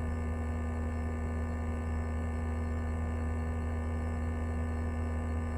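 Steady low hum with a faint thin tone above it, unchanging and without speech, under a train public-address recording.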